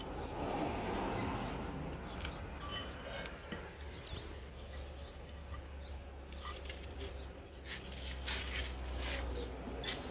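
Light metal clinks and knocks from a car's CV drive shaft and hand tools being handled, with a few sharper clicks in the last few seconds, over a steady low hum.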